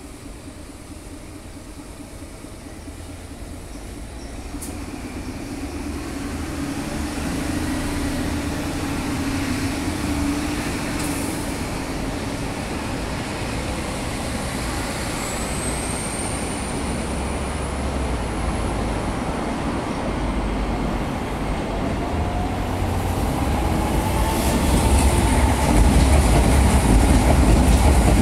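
Chiba New Town Railway 9200 series electric train approaching along the platform and passing close, its rumble growing steadily louder. A high whine rises and fades around the middle, and a lower rising whine comes in near the end as the cars run by.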